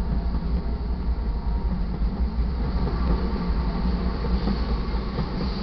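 Two GE diesel-electric freight locomotives passing close by, a Dash 9-44CW followed by an AC44CW, with a steady low rumble from their engines and running gear.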